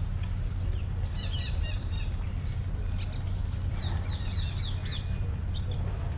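Small birds chirping in quick runs of short, falling notes, in two spells, over a steady low rumble of city background noise.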